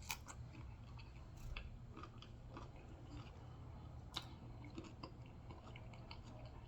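A person chewing a mouthful of loaded nachos made with Doritos chips, close to the microphone. There are many small crunches and clicks, with a louder crunch just after the start and another about four seconds in.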